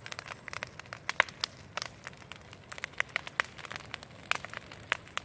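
Large bonfire crackling, with irregular sharp pops several times a second over a faint low rumble.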